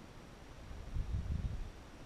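Wind buffeting the microphone outdoors: uneven low rumbling gusts, strongest about a second in, over a faint hiss. The distant RC plane's motor is not clearly heard.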